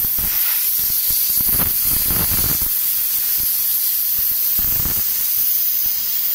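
Compressed air hissing steadily out of a Remeza belt-driven compressor's 50-litre tank through an opened valve, as the tank is bled down from about 4 atmospheres.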